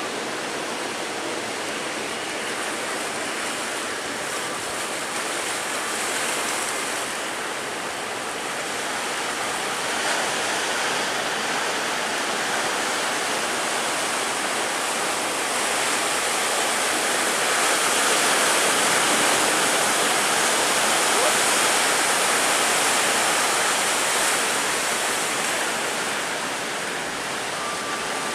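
Big surf breaking and rushing, a steady roar of water that swells louder about a third of the way in and again past the middle before easing off.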